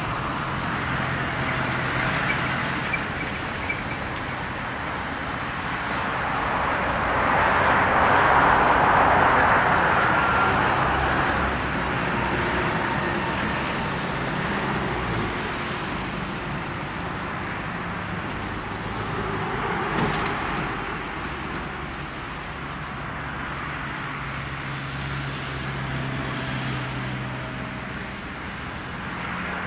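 Boeing 747-400's four Pratt & Whitney PW4056 turbofans at low power as the jet rolls out and taxis after landing: a steady distant jet rumble with a low hum, swelling louder for a few seconds about eight seconds in.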